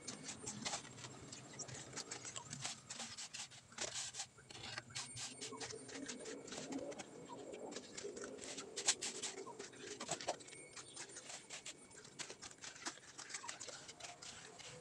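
Irregular clicking and scraping of a shovel and mason's trowel working wet cement mortar, dropping it beside a wooden form board and smoothing it down.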